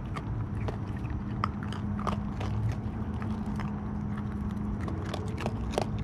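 Raccoon eating dry pet-food kibble from a bowl: irregular crisp crunches and clicks of chewing. A steady low hum runs underneath.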